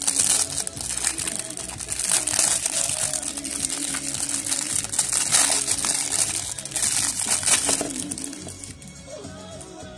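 Clear plastic bag crinkling and crackling as hands unwrap it, in bursts that die away about 8 seconds in.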